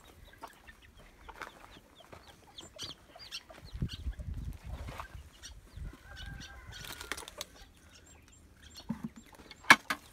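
Chickens clucking and chicks peeping amid rustling and handling noise, with a sharp click near the end.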